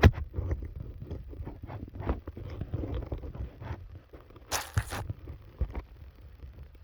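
Dehumidifier being pulled apart by hand: scattered clicks, knocks and rattles of its plastic and metal parts, with a louder half-second scrape or tear about four and a half seconds in.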